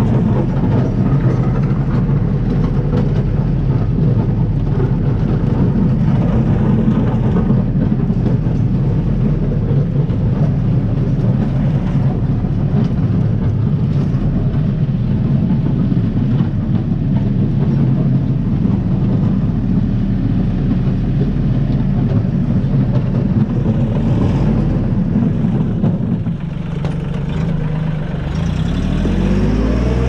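Compact tractor's engine running steadily under load while the tractor is driven. About 26 seconds in it eases off, then its pitch rises near the end as it revs up.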